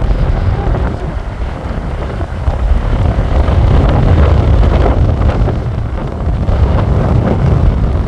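Strong wind buffeting the microphone in gusts, over heavy surf breaking on the shore. The rumble swells in the middle and eases a little near the end.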